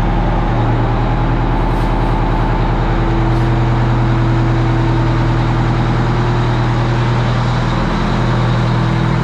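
Kenworth semi truck's diesel engine running steadily on a chassis dyno. Its pitch rises a little about half a second in and eases back down near the end.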